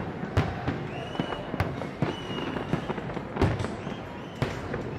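Aerial fireworks bursting, about five sharp bangs at uneven intervals of roughly a second, the loudest a little over three seconds in.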